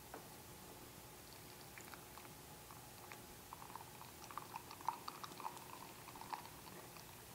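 Beer trickling faintly from a home-brew dispenser tap into a small glass, with a soft crackle of bubbles and foam that is thickest from about three and a half to six and a half seconds in. There is a faint click near the start as the tap handle is pulled. The flow is weak because the CO2 pressure that pushes the beer through has been taken off.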